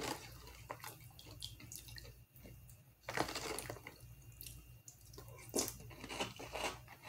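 Plastic spoon scooping through cereal in milk, with wet clicks and splashing, and crunchy chewing of a mouthful of cereal.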